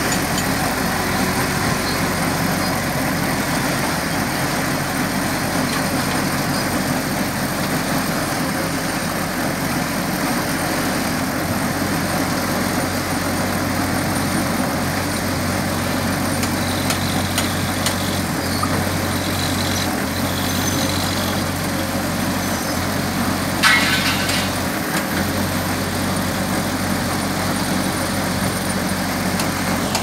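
Mobile concrete mixer running steadily, its three-phase motor and drum giving a continuous mechanical drone with a low hum. A short sharp clatter about three quarters of the way through.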